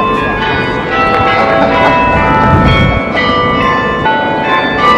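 Church bells ringing, with many different pitches struck one after another and each tone ringing on.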